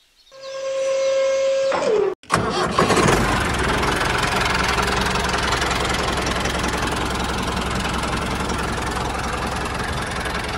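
A steady whine lasts about two seconds and falls in pitch as it stops. After a brief break, a mini tractor's engine starts and runs steadily with a low rumble.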